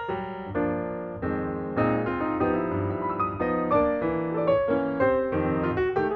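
Piano music: a quick melody of separate struck notes over lower held notes and chords.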